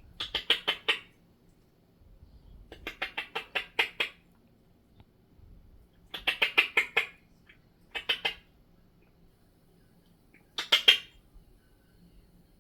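African grey parrot making rapid, sharp clicking calls in five short bursts of about a second or less each, with quiet gaps between them.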